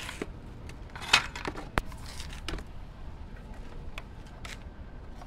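Scattered light knocks and clicks from handling a corded circular saw and its cord as it is set down on a concrete block wall, the sharpest click a little under two seconds in. The saw is not running.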